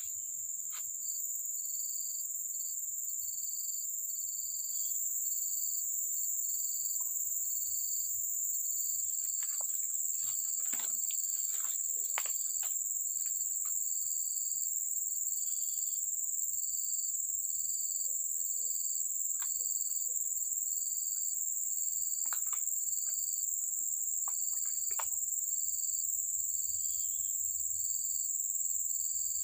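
Insects chorusing: a steady high-pitched drone with a regular chirp pulsing over it about one and a half times a second. A few faint clicks come through midway.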